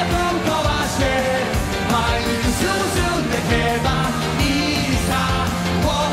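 Live pop-rock band performance with male lead singing over a steady drum beat.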